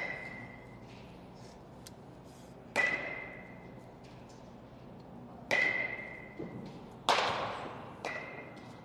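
Baseball struck by a metal bat four times, each a sharp ping with a short ringing tone that dies away; the last hit is fainter.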